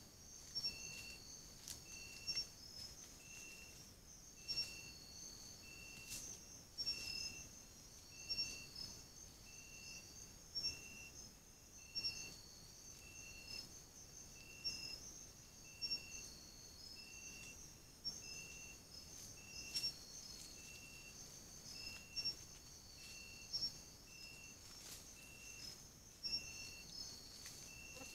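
Night insects calling: a steady high trill with scattered chirps over it, and a short lower note repeating evenly about once a second.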